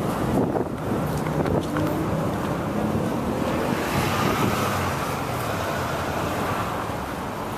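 Road traffic from a line of cars on a busy street, a steady rush of engines and tyres, with wind buffeting the microphone.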